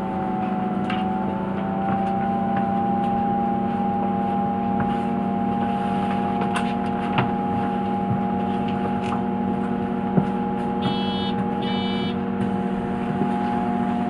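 Engine of a MAN Lion's City A21 CNG city bus idling at a stop, heard from inside the cabin: a steady hum with several unchanging tones above it, the 'funny sound' of this engine. About eleven seconds in come two brief bursts of electronic beeping.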